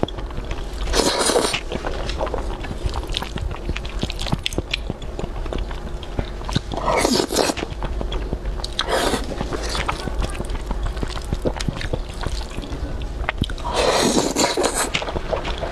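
Close-miked eating of thick sauced noodles: four long wet slurps, the last the longest, near the end. Between them comes steady chewing with small wet clicks and smacks.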